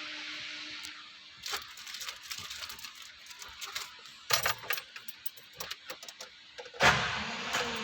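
Ignition keys jangling and a series of sharp clicks as the 1990 Nissan Safari is cranked, then near the end a short burst of the starter motor turning and winding down in pitch. The starter motor is faulty.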